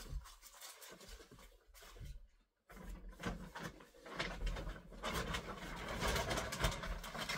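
Rustling, crinkling and knocking of packaging and objects being handled. The sounds are scattered at first, then become almost continuous and louder from about three seconds in.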